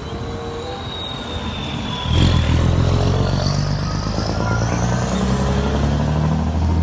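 Volvo F-series truck's diesel engine pulling a tanker trailer away. It runs at low revs, then comes up louder about two seconds in as it accelerates through the turn, with a high whine rising over the engine.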